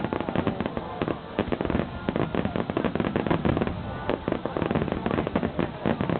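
Fireworks bursting and crackling in quick succession: a dense run of sharp pops with no pause.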